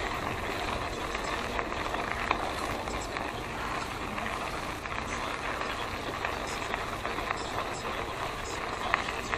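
Steady rush of wind and tyre noise from an e-bike rolling along an asphalt path, picked up by an action camera in an open housing, with a couple of sharp clicks, one near the end.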